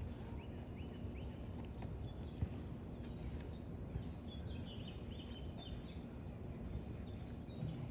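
Quiet outdoor ambience: a steady low rumble with faint bird chirps in two short runs and a soft click or two.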